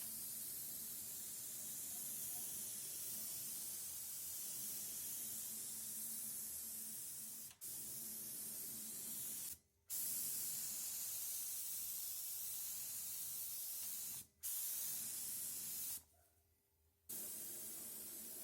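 Spraying hiss, as from a spray gun applying coating to a car body, running steadily in long stretches broken by four short stops where the spray is released, the last about a second long.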